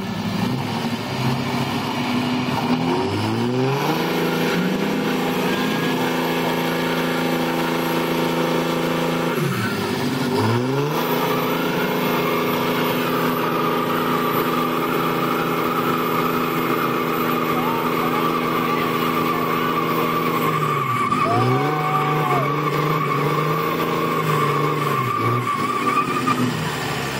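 Two diesel pickups, a Cummins-powered Dodge Ram and a Ford Power Stroke, running hard at high revs under heavy load in a chained tug-of-war pull. The engine pitch climbs a few seconds in, dips briefly twice and climbs back each time. A steady whine runs over it through the second half.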